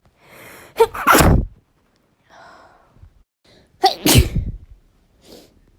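A woman sneezing twice, about a second in and again about four seconds in, each sneeze led in by a short intake of breath.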